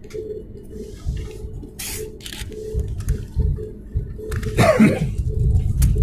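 Cabin noise of a Boeing 737 MAX 8 taxiing after landing: a low rumble from the rolling wheels and idling engines that grows louder toward the end. A few short rustles and a brief wavering squeak about five seconds in sit on top of it.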